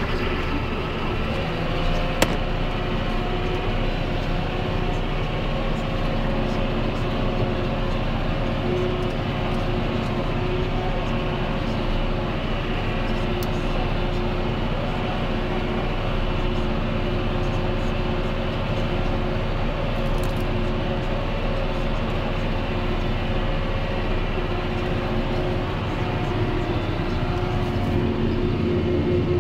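John Deere 6630 tractor's six-cylinder diesel engine running steadily under load while pulling a five-furrow plough through wet ground, with one sharp click about two seconds in.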